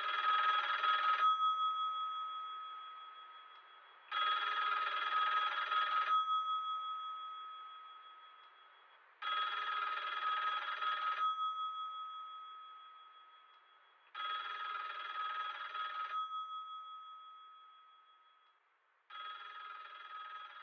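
Telephone bell ringing five times, about every five seconds. Each ring is a fast-pulsing burst of about two seconds that leaves a fading bell tone, and each ring is fainter than the last. The sound is thin, cut to the narrow range of a phone line.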